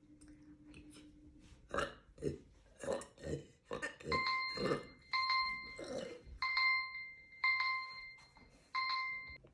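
A woman burping repeatedly: a quick run of short burps starts about two seconds in, followed by longer burps. From about four seconds in, a steady high beeping tone sounds along with them, coming and going five times.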